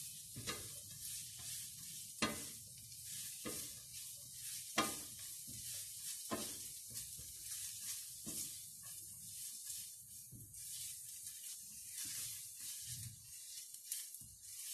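Diced vegetables (onion, celery, peas and carrots) sizzling in a nonstick frying pan while a silicone spatula stirs them, with a scrape or knock against the pan every second or two.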